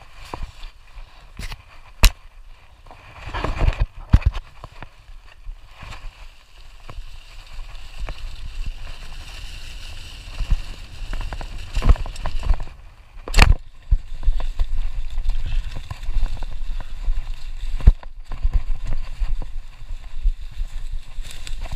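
Bicycle ridden fast over a thick layer of dry fallen leaves: tyres rustling and crunching through the leaves, with a few sharp knocks as the bike jolts over bumps.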